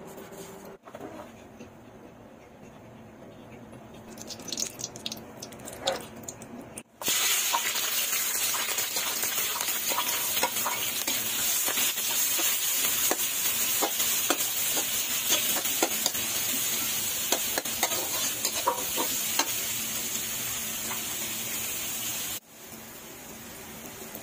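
Sliced onions and green chillies frying in a pan, sizzling steadily while a spatula stirs, scrapes and taps against the metal. After a few seconds of low background noise and a brief clatter, the sizzling comes in suddenly about seven seconds in and stops abruptly near the end.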